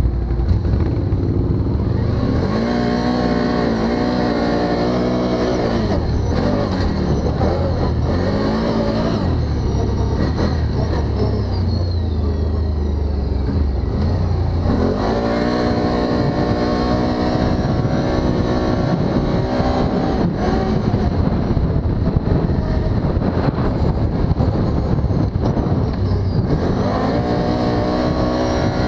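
Can-Am Outlander MAX 1000 ATV's V-twin engine running under the rider, rising in pitch as it accelerates, then easing off and pulling again several times.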